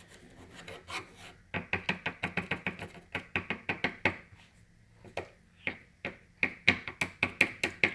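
Glue slime being squeezed and poked by hand, making sharp clicking pops: a quick even run of about six a second, then slower scattered clicks.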